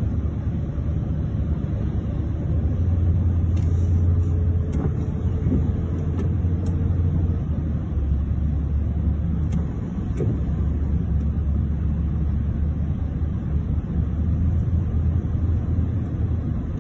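Car driving through floodwater, heard from inside the cabin: a steady low rumble. A few faint clicks come about four to seven seconds in and again near ten seconds.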